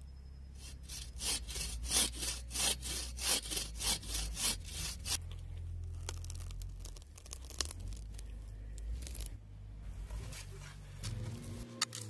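A saw cutting through wood in quick, regular strokes, about three a second, for around five seconds, then stopping. Scattered knocks and clicks follow.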